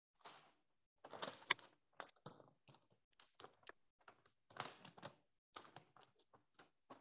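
Faint, irregular clicks and knocks in quick, uneven runs, with dead silence between them, picked up through a video-call participant's microphone.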